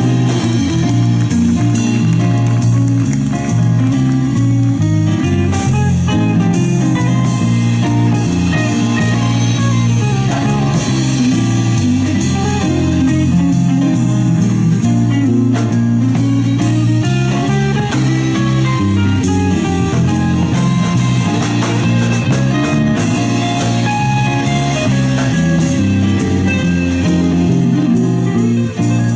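A live band playing an instrumental passage: guitar over bass guitar and a drum kit, with no singing.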